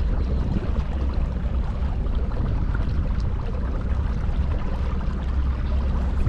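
Steady low rumble of wind buffeting the microphone, with water lapping against a small boat.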